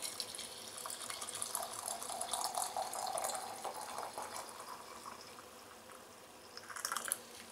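Hot tea pouring in a thin stream from a metal pot into a ceramic teapot, a steady liquid trickle that grows fainter in the second half, with a couple of light knocks near the end.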